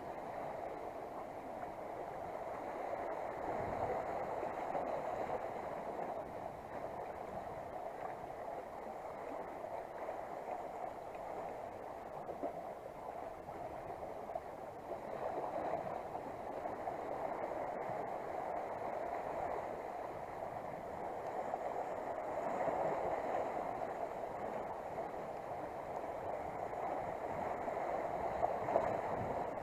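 Sea water washing and gurgling around the concrete blocks at the foot of a breakwater: a steady rush that swells and eases every few seconds.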